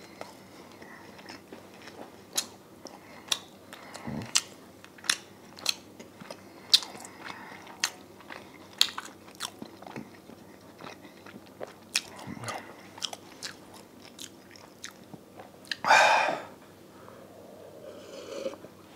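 Close-miked chewing of a crisp-coated chicken thigh: irregular wet mouth clicks and crunches every half second or so, with one louder, noisy rush of breath about three-quarters of the way in.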